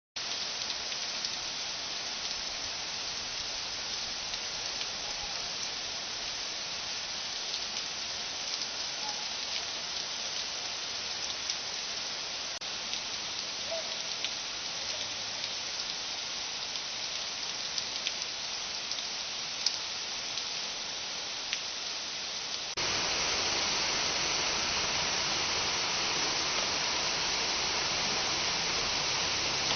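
Heavy rain pouring down in a steady, dense hiss, with a few faint ticks of drops. About three-quarters of the way through, it jumps abruptly louder and fuller.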